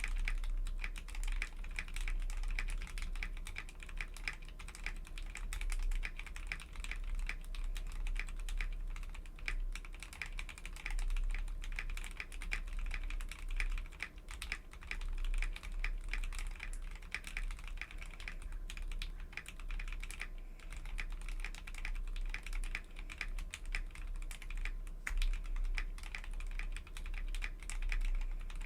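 Steady, fast typing on a GAMAKAY K61 Pro 60% gasket-mounted mechanical keyboard with lubed Gateron Milky Yellow linear switches, picked up by a desk microphone; the keystrokes have a creamy sound, with a brief lull about twenty seconds in.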